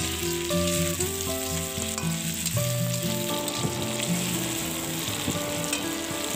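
Diced potatoes sizzling as they fry in hot mustard oil in an iron kadhai, stirred with a metal spatula.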